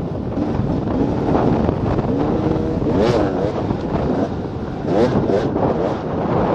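2014 KTM 300 XC-W's two-stroke single-cylinder engine revving up and down with the throttle as the dirt bike is ridden along a trail, its pitch rising and falling several times. Wind rushes over the helmet-mounted microphone.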